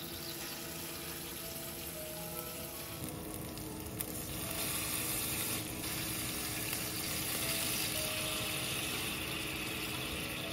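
Pork-and-tofu hamburg steaks sizzling in oil in a frying pan. About four seconds in the sizzle grows louder and brighter as the teriyaki sauce liquids (sake, mirin, soy sauce) go into the hot pan.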